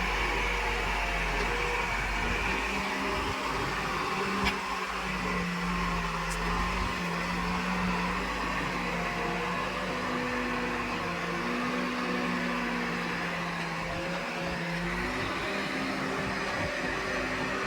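Diesel engine of an Escorts Digmax backhoe loader running while digging, its pitch stepping up and down as the load changes, with a single sharp knock about four and a half seconds in.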